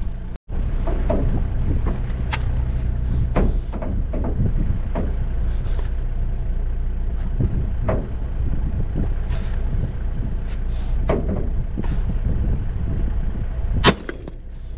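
A 4x4's engine runs steadily as it drives over a rough dirt track, with frequent knocks and rattles from the vehicle jolting over the ground. A sharp loud click comes near the end.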